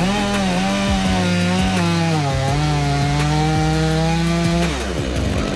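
Two-stroke chainsaw throttled up and cutting into wood. The engine note sags under load in the middle of the cut, and the throttle is released near the end.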